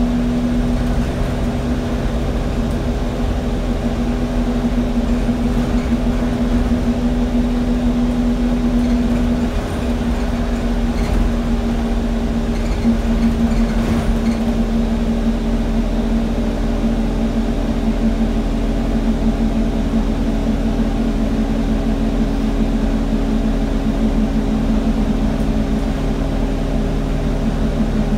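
Alexander Dennis Enviro200 single-deck bus heard from inside the passenger saloon while under way. Its engine and running gear make a steady drone with a held hum that dips slightly in pitch about ten seconds in.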